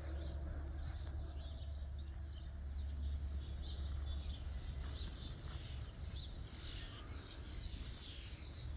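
Small birds chirping sparsely in the background over a steady low rumble.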